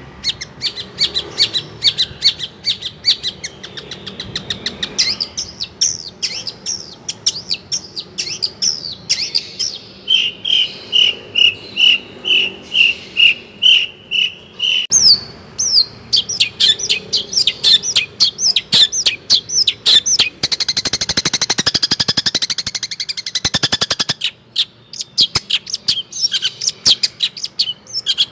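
Long-tailed shrike (cendet) singing a fast, varied song of chirps and trills. Midway it repeats one clear note about twice a second for several seconds, and a little later gives a harsh, buzzing rattle for a few seconds before the quick chirping resumes.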